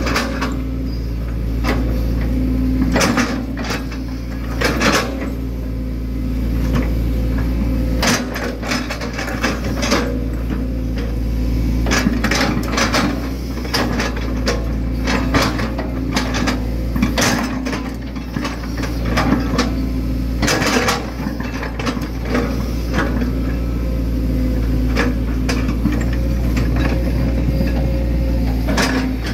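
Hitachi Zaxis 110 excavator working, heard from the operator's cab: a steady diesel engine and hydraulic drone, with frequent clunks and knocks as the bucket digs into wet earth.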